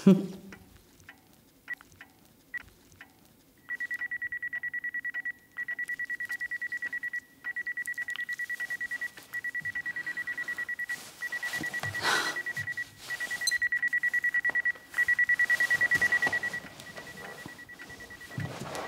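Digital wristwatch alarm beeping: a few faint clicks, then about seven bursts of rapid, high-pitched beeps, each about a second and a half long with short gaps between them.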